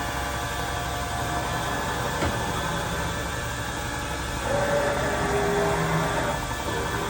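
Mori Seiki vertical CNC mill running with a steady mechanical whir and faint whining tones. A single tick comes about two seconds in, and past the middle the sound grows louder as the whining tones shift in pitch.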